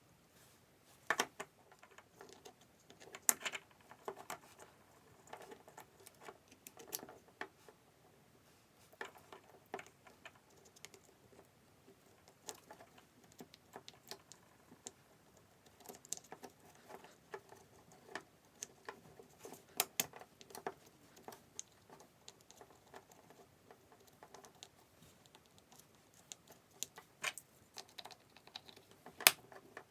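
Scattered light clicks and taps of small hard parts being handled, with a few sharper knocks.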